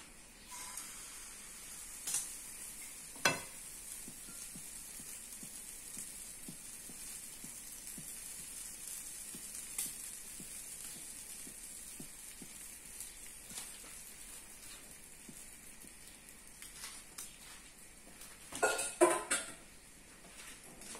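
Pancake batter sizzling in a hot nonstick frying pan on a gas stove as it is poured in and cooks, a steady hiss. A sharp knock comes about three seconds in, and a short burst of cookware clatter near the end.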